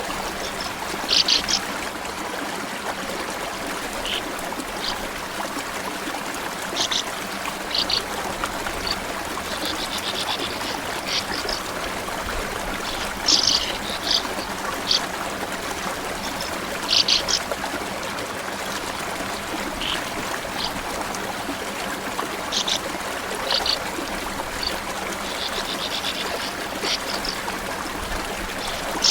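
Small stream running steadily, with short, high-pitched chirps and twittering from small birds scattered throughout.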